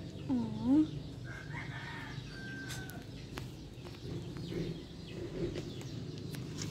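A cat gives one short meow that dips and then rises in pitch, the loudest sound here. Fainter, higher bird calls follow over the next couple of seconds.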